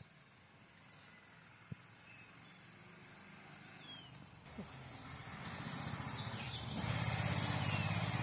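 Birds chirping in short descending notes over faint rustling in dry leaf litter and soil as wild mushrooms are dug out by hand, with one sharp click early on. Past halfway a low, rough drone swells up and becomes the loudest sound.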